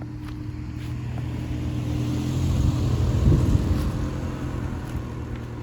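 A motor vehicle driving past: its low engine and tyre rumble grows louder, peaks about three seconds in, then fades away.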